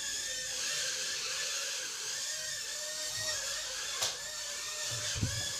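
Small toy quadcopter drone's electric motors and propellers running with a steady high whine that wavers slightly in pitch. There is a sharp click about four seconds in and a low thump near the end.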